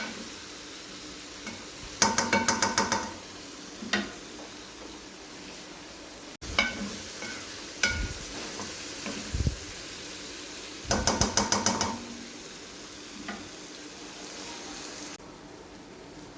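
Cauliflower and chicken curry sizzling steadily in a pan, stirred with a metal spoon that clatters against the pan in two quick rattling runs, about two seconds in and again about eleven seconds in, with a few single knocks in between.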